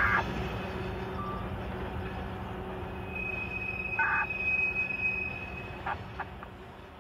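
Train rolling past with a steady rumble and short metallic clanks from the cars. A thin, high wheel squeal holds for a few seconds in the middle, and the sound fades toward the end.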